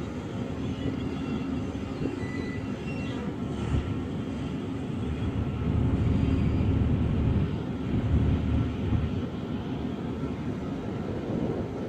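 Steady low rumble of a land drilling rig's machinery running while the rig is skidded, growing somewhat louder midway, with a few faint thin high tones in the first few seconds.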